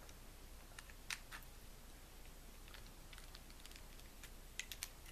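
Faint scattered clicks from handling a mini spinning reel as its crank handle is fitted into the slot, with a sharper click about a second in and a few quick ones near the end.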